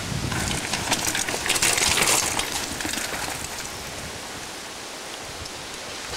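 Mountain bike tyres landing off a jump and rolling over loose dirt: a crunching hiss for about two seconds, fading to a fainter steady hiss.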